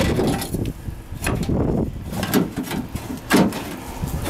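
A few irregular metallic knocks and scrapes from hand work on the drive pulley of a John Deere combine's tailings auger, which has snapped. The loudest knock comes a little past three seconds in.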